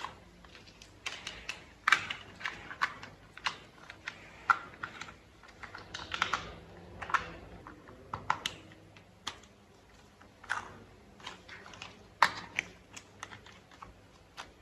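Plastic toy vehicle parts being handled and fitted together: irregular sharp clicks, taps and snaps, with a few short scrapes, the loudest at about two seconds in and about twelve seconds in.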